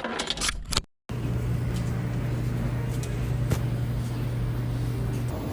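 Steady machine noise with a constant low hum, running evenly for several seconds and then cutting off abruptly near the end. It comes after a brief burst of handling clicks and a moment of dead silence.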